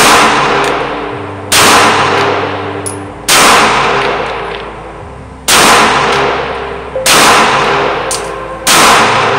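Six shots from a CZ P10C 9mm compact pistol, fired one at a time about one and a half to two seconds apart. Each shot rings on in the indoor range's echo, dying away slowly until the next.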